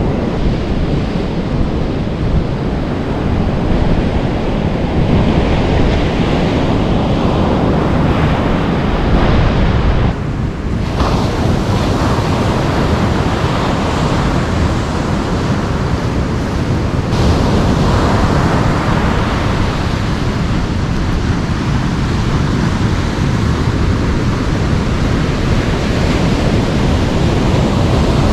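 Ocean surf washing and breaking on a sandy beach, a steady rushing noise, with wind buffeting the microphone.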